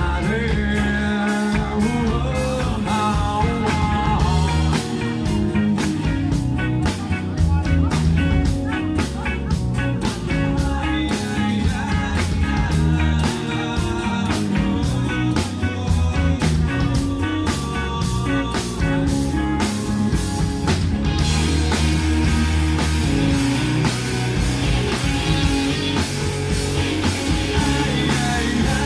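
Rock band playing live: electric guitars, bass guitar and a drum kit keeping a steady beat. About 21 seconds in, the cymbals and the top end get brighter and the band's sound fills out.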